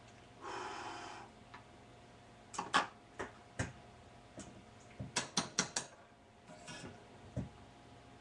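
Small parts of a portable reel-to-reel tape recorder being handled and fitted back together. A short scraping rustle comes first, then a series of sharp clicks and taps, with a quick run of about five clicks about five seconds in and a single knock near the end.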